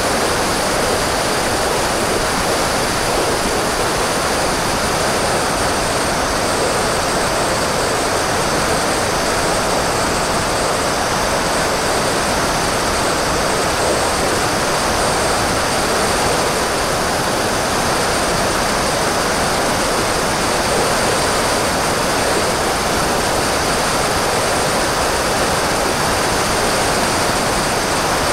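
Steady rush of airflow over the onboard camera of an HK BFG RC glider in flight, with a faint, even high whine from its electric motor and propeller.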